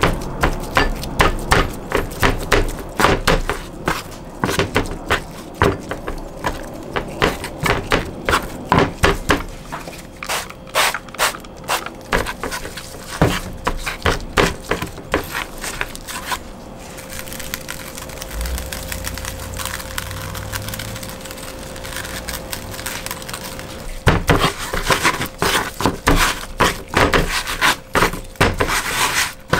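Gloved hands patting, slapping and rubbing dry rub into raw butterflied chicken drumsticks and flipping them on a cutting board: a quick run of wet taps and slaps. The taps come thick at first, thin out in the middle, and pick up again near the end.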